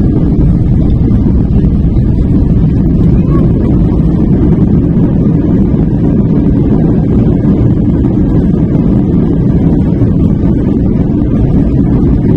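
Loud, steady low noise of an Airbus A321 rolling out on the runway after touchdown, heard inside the cabin over the wing: the engines and the wheels rumbling on the runway while the ground spoilers are raised.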